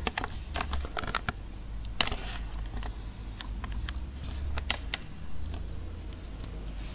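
Scattered light clicks and taps of the camera being handled and moved in closer over the workbench, over a low steady hum.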